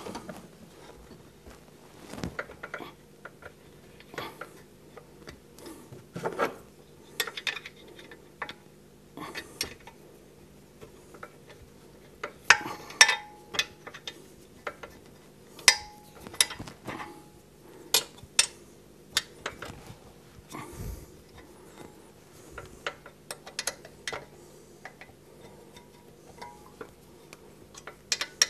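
Irregular metal clinks, clicks and knocks of hand tools and bolts against a wood lathe's metal bed while an extension bed is fitted, a few strikes ringing briefly. A faint steady hum runs underneath.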